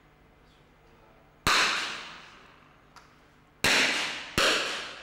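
.22 rimfire target rifle shots on the firing line: three sharp cracks, about 1.5, 3.6 and 4.4 seconds in, with another just at the end. Each echoes on the range and dies away over about a second.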